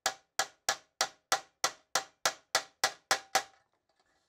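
A hammer tapping the edge of a thin 22-gauge steel Porsche 356 brake backing plate to straighten its crushed flange. A dozen evenly spaced strikes, about three a second, each with a short metallic ring, stop about three and a half seconds in.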